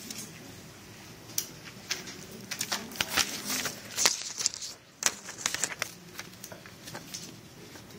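Paper rustling and short clicks and scratches close by, like students handling worksheets and pencils while writing, with a cluster of louder rustles between about two and four seconds in.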